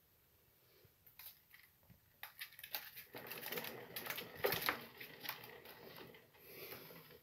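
Orange plastic exercise wheel spinning and rattling with fast, dense clicking as a sugar glider runs in it. It starts with a few scattered clicks, builds about two seconds in, is loudest around the middle and eases off near the end.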